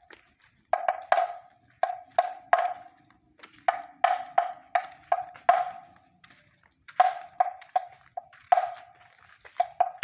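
Kentongan, a hollow bamboo or wooden slit drum of the night watch, beaten with a stick in quick irregular groups of knocks. Each knock rings briefly with a hollow tone.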